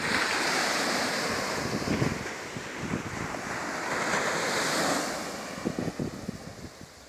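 Ocean surf: a wave breaking and washing up the beach, a broad hiss that swells at the start and fades away after about five seconds, with wind buffeting the microphone.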